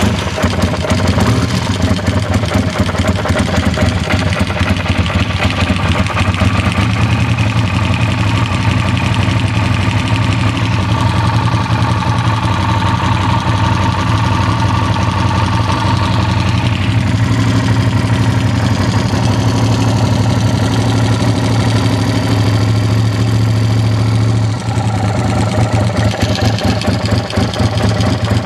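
Yamaha TRX850 motorcycle's 849 cc parallel-twin engine idling steadily just after starting, with a slight change in tone about two-thirds of the way through.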